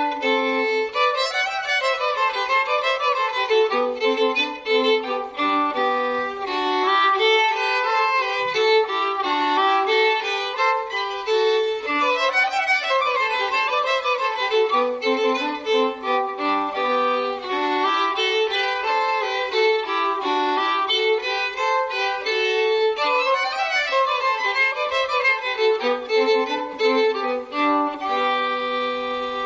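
Live fiddle music: a folk tune played with quick runs of notes, settling into long held notes near the end.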